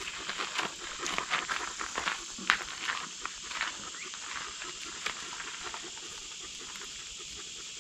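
Scattered light knocks, clicks and scrapes as the wooden kiln-shed doors are handled and opened, thinning out after about five seconds, over a steady background hiss.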